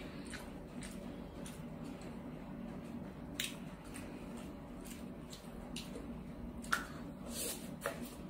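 Close-up eating sounds of sushi being chewed: scattered wet mouth clicks and smacks, the loudest about two-thirds of the way in, over a faint steady hum.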